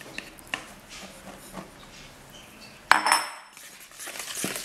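Wire whisk clinking and scraping in a mixing bowl as wheat flour is added to cake batter, with scattered light taps and one sharp knock about three seconds in. Near the end it turns into rapid, steady whisking as the flour is stirred in.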